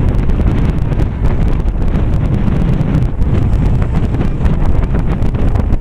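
Wind buffeting the microphone: a loud, continuous low rushing noise that fluctuates unevenly.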